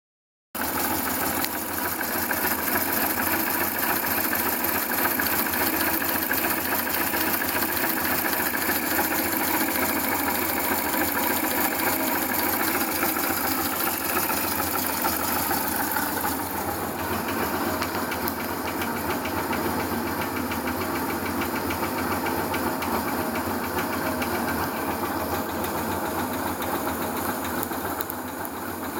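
Yamaha SRV250 V-twin motorcycle engine running steadily, heard close up at the front cylinder and, from about halfway through, through the fuel tank, where a rapid ticking comes through. The owner asks whether this is an abnormal noise.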